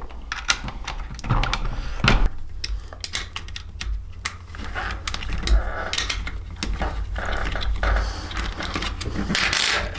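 A 5mm Allen key undoing a bolt on a motorcycle's plastic rear fender assembly: irregular light clicks and taps of the metal key against the bolt head and plastic as it is fitted and turned.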